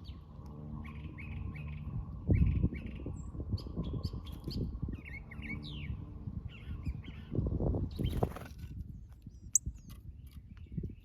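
Small birds chirping in quick repeated short notes, over a low rumble with a steady hum that cuts off about eight seconds in.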